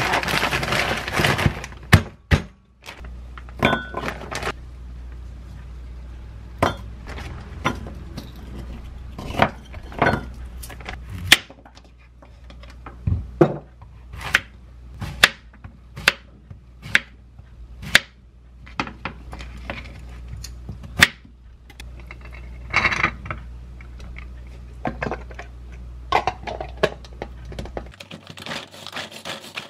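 Kitchen knife cutting a zucchini on a wooden cutting board: a long run of irregular sharp knocks, about one or two a second, some much louder than others. It opens with a plastic bag of frozen shrimp rustling, and near the end a pull-cord manual food chopper starts with a steady rasping whir.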